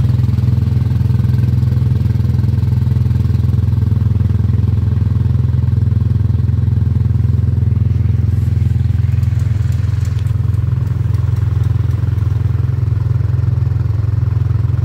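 Small engine of a Turnpike-style antique ride car running steadily as the car drives along its guide track: a loud, even, low drone that holds the same pitch throughout.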